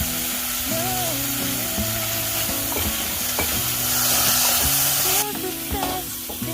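Food sizzling as it fries in a hot pot, a steady hiss that grows louder after about four seconds, under background music with a melody.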